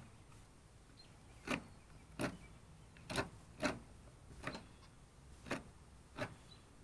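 Scissors cutting through an alligator gar's hard, bony scales and skin: about eight sharp, short crunches spaced unevenly, one every half second to a second.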